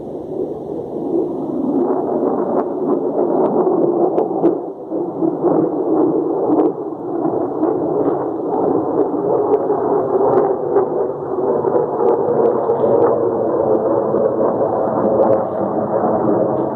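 A military fighter jet flying overhead: loud, steady jet noise that swells over the first couple of seconds and stays strong.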